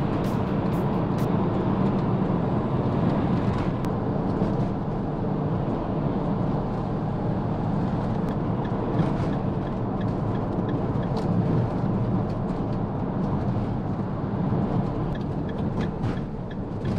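Steady road and engine noise of a motorhome driving at motorway speed, heard from inside the cab: an even rumble of tyres and running gear.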